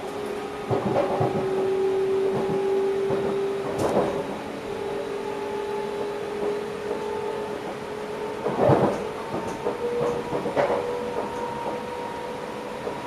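Electric passenger train heard from inside the driver's cab: a steady motor whine over track noise, with scattered knocks and rattles as the wheels run over the rails. The loudest knock comes near the end, and the whine's pitch shifts up slightly after it.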